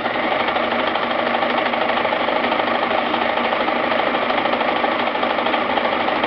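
Brother XL2030 sewing machine running at a steady speed, a fast, even mechanical clatter that starts abruptly.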